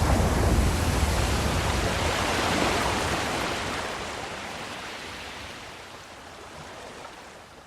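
Ocean wave breaking and washing up, a rush of surf that swells over the first couple of seconds and then slowly fades as the water draws back.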